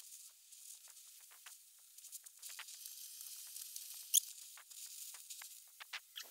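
Oxygen-fed torch flame hissing faintly while brazing copper, with frequent small crackles and sizzles and one sharp high pop about four seconds in.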